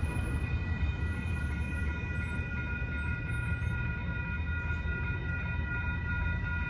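Railroad crossing bell ringing steadily over the low rumble of a Union Pacific freight train at the crossing.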